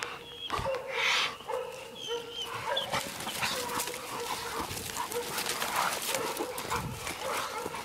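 Hog dogs barking repeatedly in short, overlapping barks, the sound of dogs holding a wild hog at bay.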